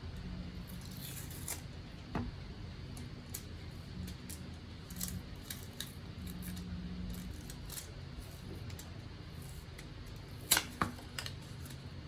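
Packaging of a pair of wireless earbuds being handled: scattered small clicks and rustles, with a sharp cluster of clicks about ten and a half seconds in.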